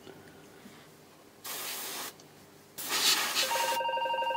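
Aerosol freezer spray hissing in two short blasts, about a second and a half in and again for about a second and a half near the end. During the second blast a buzzy, slightly pulsing pitched tone, the synthesizer's held note, cuts in briefly.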